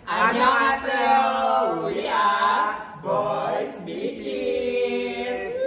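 Four young men singing together in chorus: one phrase, a short break about three seconds in, then a second phrase ending on a long held note.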